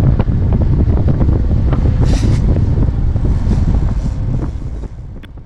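Strong wind buffeting the microphone: a loud, crackling rumble, with a brief rush of hiss about two seconds in. It eases near the end.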